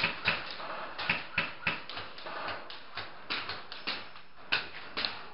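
Irregular sharp clicks and taps, a few each second, over a faint hiss.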